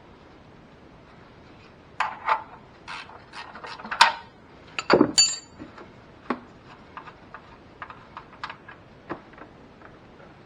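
Metal clicking and clattering of a wrench working the 14 mm oil drain plug loose from the oil pan. There is a flurry of sharp clicks and knocks about two seconds in, then lighter, scattered clicks.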